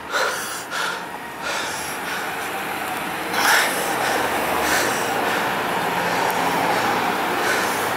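City street traffic: cars and other vehicles running and moving through an intersection, a steady noise that swells about three and a half seconds in, with several short bursts of hiss.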